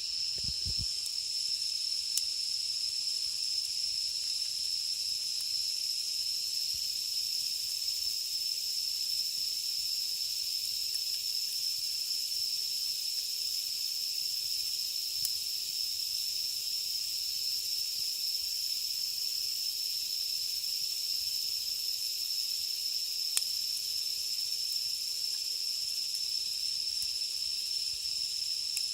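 Cicadas singing in one steady, unbroken high-pitched drone, with a few faint crackles from the campfire's embers.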